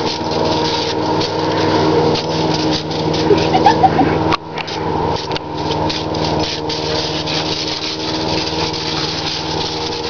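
Garden hose spraying water at a corgi that snaps and bites at the stream, with short clicks and splashes, over a steady engine hum.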